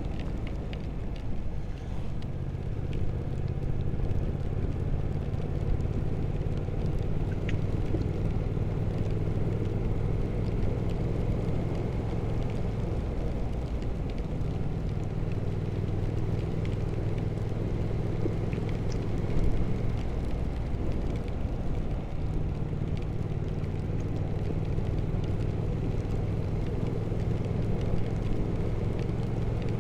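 Triumph Speed Twin 1200 parallel-twin engine running at a steady cruising speed, heard from the rider's helmet camera, with no revving or gear changes.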